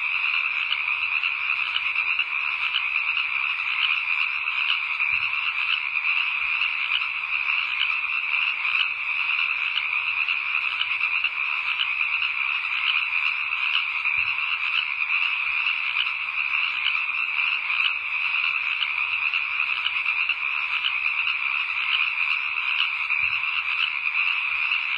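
A steady, dense chorus of frogs calling, a high rapid pulsing that never lets up.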